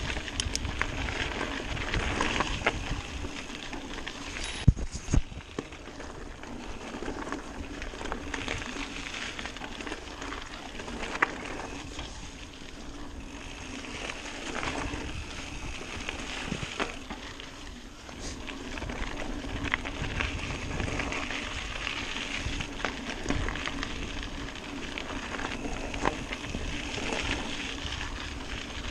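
Mountain bike being ridden along a singletrack trail: steady tyre and riding noise with frequent small rattles from the bike, and two sharp knocks about five seconds in.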